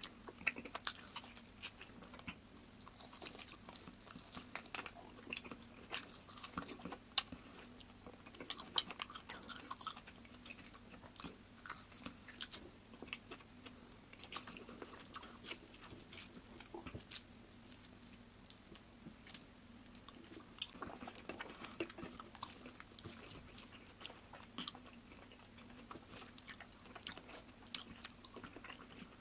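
Close-up chewing and biting of a person eating mutton and rice by hand, with many short, sharp wet mouth clicks through the whole stretch.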